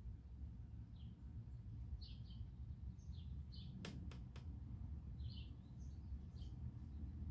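Small birds chirping, short high notes in quick clusters repeating about once a second, over a steady low background rumble. Three sharp clicks come close together about four seconds in.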